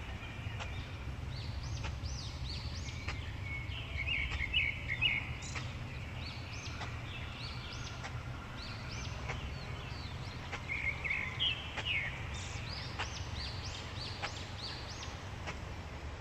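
Birds chirping over and over, many short high calls rising and falling in quick runs, busiest about four seconds in and again near eleven seconds, over a steady low rumble with scattered faint clicks.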